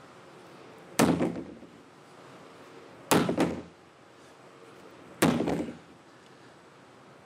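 Sledgehammer striking a 28-gallon cross-linked polyethylene hydraulic tank: three heavy blows about two seconds apart, each a thud that rings out briefly.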